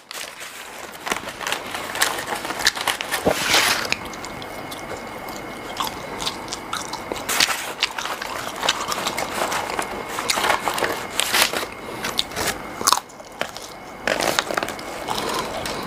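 Close-up eating of McDonald's French fries: irregular crunching bites and chewing.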